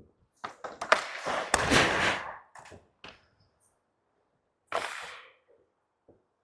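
Ice hockey play heard on a goalie's mic: a few sharp knocks, then a loud crack about a second and a half in amid over a second of skate blades scraping the ice, and a shorter scrape about five seconds in.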